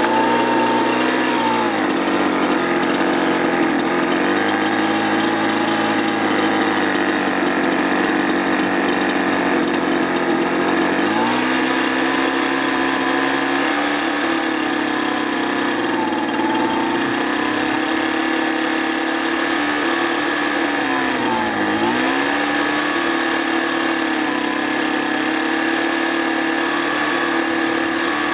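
Small two-stroke engine running at a fast idle just after starting, its speed sagging and picking back up several times, with one sharp dip past the middle. The idle screw has been turned up to keep it running on a cleaned but still poor carburetor that is not yet adjusted.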